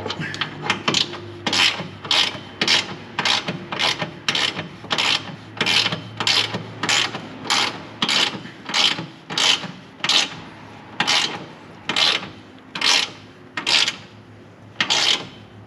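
Hand ratchet tightening an exhaust clamp nut, each back-swing giving a short rasping run of clicks. The strokes come about two a second and slow toward the end as the nut tightens.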